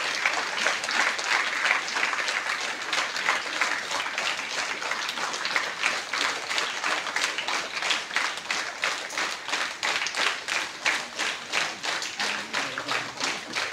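A crowd applauding with dense hand clapping. In the last few seconds the clapping thins out into fewer, more evenly spaced claps.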